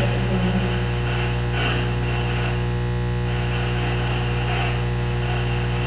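Steady low electrical hum with a constant hiss, a mains-type buzz.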